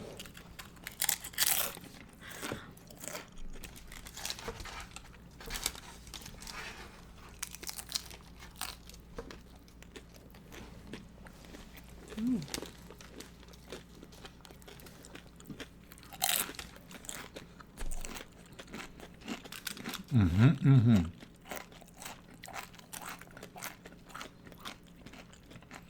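Loaded nachos with crisp tortilla chips being bitten and chewed close to the microphone: irregular crunches throughout. A short voiced hum about twenty seconds in is the loudest moment.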